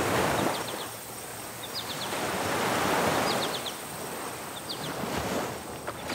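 Sea surf washing in slow swells about every three seconds, with small clusters of short high chirps over it.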